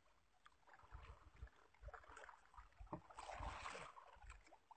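Faint water sloshing against the side of a wooden boat, with a few soft knocks and a brief louder rush of water about three seconds in.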